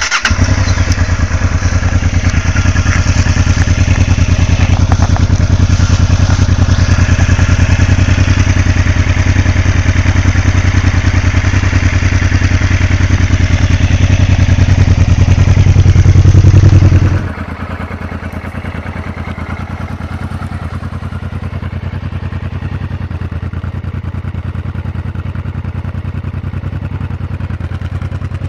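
Honda Transalp V-twin motorcycle engines running through aftermarket silencers: a loud, steady run with a pulsing beat that grows a little louder before cutting off abruptly about 17 seconds in, followed by a second bike idling more quietly.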